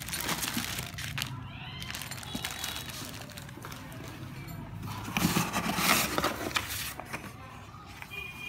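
Packaging being handled in a cardboard box: plastic bags crinkling and cardboard, foam inserts and paper rustling in irregular bursts, loudest about five to six and a half seconds in.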